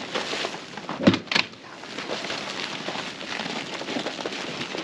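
Canvas of a TuffStuff Trailhead rooftop tent rustling as the tent is unfolded open on its trailer, with two sharp knocks a little over a second in.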